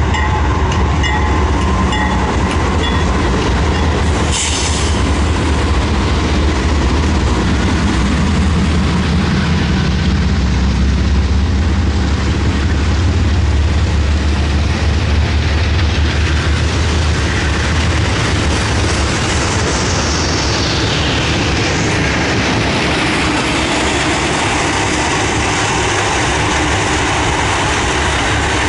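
Freight train passing close by. Heavy diesel locomotive engine rumble fills the first half, then the steady rumble and clatter of freight cars rolling over the rails. There is a brief hiss about four seconds in, and a high tone that glides down in pitch around twenty seconds in.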